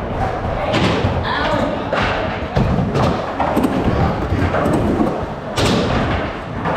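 Skateboards rolling with a steady low rumble, broken by irregular hard thuds and clacks of boards hitting the surface, the loudest near the end.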